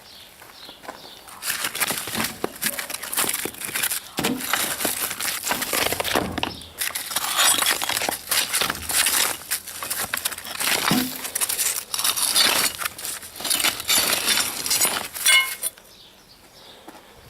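Rusty steel machete blade being scraped and knocked, a dense run of gritty scraping with many clinks, and a short metallic ring near the end.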